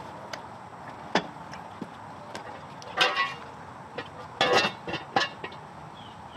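Hand tools clicking and clanking on metal during suspension work, with two short bursts of clatter about three seconds and four and a half seconds in.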